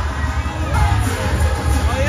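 Upbeat parade music from loudspeakers with a strong, pulsing bass beat, and crowd noise underneath.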